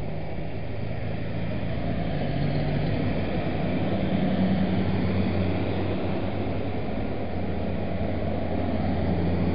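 Tractor diesel engines running as tractors drive slowly past: a low, steady engine drone whose pitch shifts as one engine gives way to another, swelling in loudness about halfway through.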